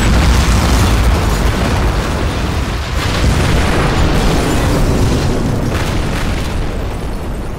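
Explosion sound effect: a loud boom with a long low tail that slowly fades, with a further hit about three seconds in.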